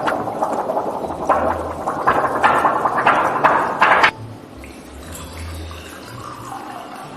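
Rushing, splashing water with repeated sharp splashes, cutting off suddenly about four seconds in; after that, only a faint low sound.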